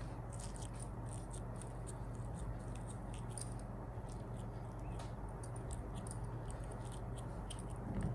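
Oiled fingers pressing soft rice-flour dough into a plastic kozhukattai mould: many small sticky clicks and squishes, over a low steady hum.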